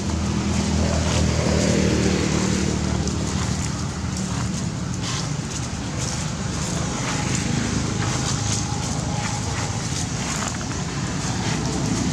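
A motor vehicle's engine running close by, its pitch falling between about one and three seconds in, over steady outdoor noise.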